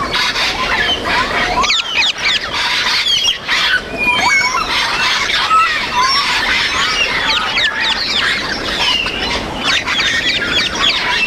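Parrots calling over one another: a dense, continuous mix of short whistles, rising and falling chirps and squawks.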